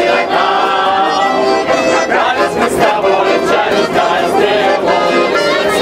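Several men singing loudly together to a strummed acoustic guitar.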